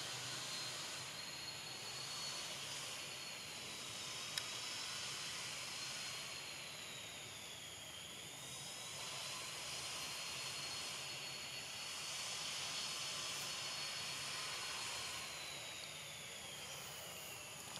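Insect chorus: a steady high hiss that swells and fades every few seconds, with a thin high whine that dips in pitch about eight seconds in and slides down near the end.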